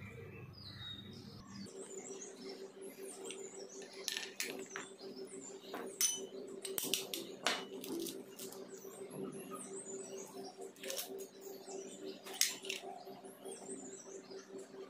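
Eggs being cracked and separated by hand over a steel bowl, with scattered sharp clicks and taps of shell against the bowl and separator. Small birds chirp steadily in the background over a constant low hum.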